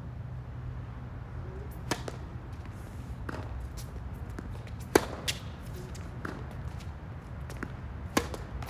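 Tennis rally on a hard court: sharp pops of the ball off the rackets and its bounces, about five of them, the loudest about five seconds in and again near the end, over a steady low hum.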